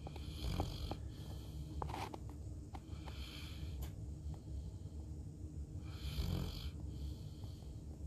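Saint Bernard snoring in its sleep: a steady low snore with a breathy swell about every three seconds.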